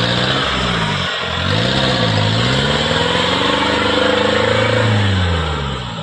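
Engine of a modified off-road 4x4 competition vehicle revving hard as it drives away over muddy ground. The revs rise and fall about three times, with a brief lift about a second in and the highest revs near the end.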